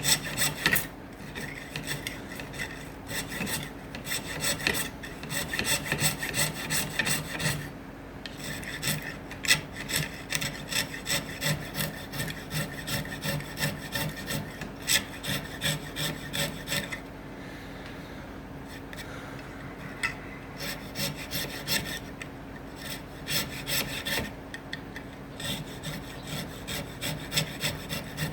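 A block of acacia wood being filed by hand in quick back-and-forth strokes, about three a second, with a few short pauses, smoothing the blank of a wooden beard comb.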